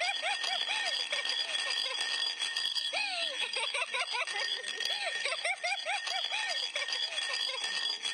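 Baby giggling and laughing in quick runs of short rising-and-falling notes, with steady high tones behind.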